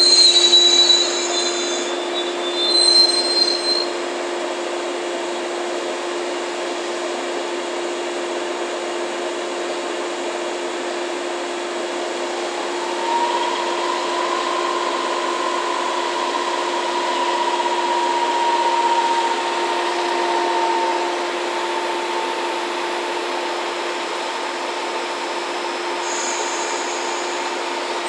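Brake and wheel squeal of a JR 115-series electric train dies away in the first few seconds as it comes to a stand. The standing train's equipment then gives a steady machine hum with a constant low tone. A higher tone rises about twelve seconds in and holds.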